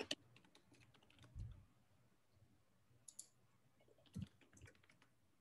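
Faint computer keyboard typing: scattered keystroke clicks, with short flurries about three and four seconds in.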